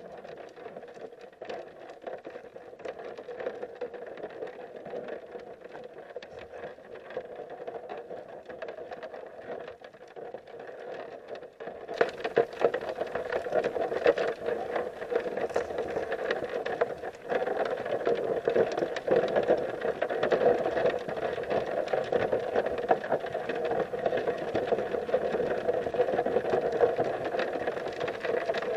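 Underwater sound of a creek heard through a submerged camera: a steady, muffled rush of flowing water with constant fine crackling and clicking. It gets louder and brighter about twelve seconds in.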